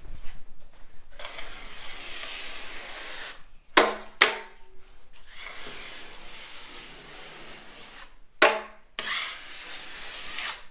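Drywall knife scraping along a tape-on corner bead, squeezing out and wiping off runny joint compound. There are a few sharp knocks: two close together about four seconds in and one more past eight seconds.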